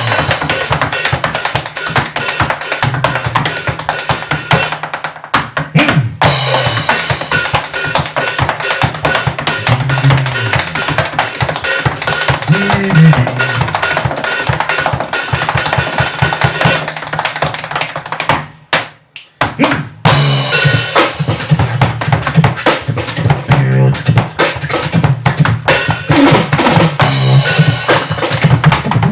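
Live percussion trio of drum kit, tap dance and beatbox playing a fast, driving beat with a low pitched bass line. The playing stops for a moment about two-thirds of the way through and then comes back in.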